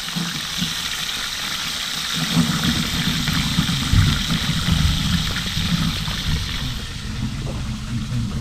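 Whole trout deep-frying in oil in a cast-iron pan, a steady sizzle that fades out near the end. From about two seconds in, a low rumble runs underneath and is the loudest part.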